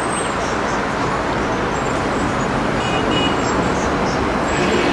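Steady noise of road traffic at a busy city intersection, with a brief faint high-pitched beep about three seconds in.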